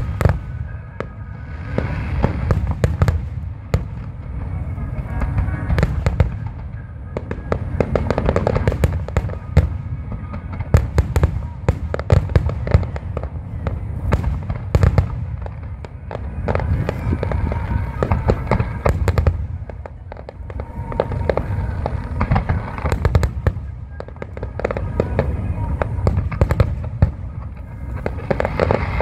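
Aerial fireworks display: shells bursting in quick, overlapping volleys, with sharp bangs over a continuous low rumble and crackle. Music plays underneath.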